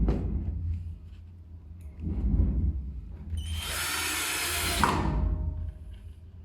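Power drill driving a screw into the table stand for about a second and a half, with knocks of handling the parts before it.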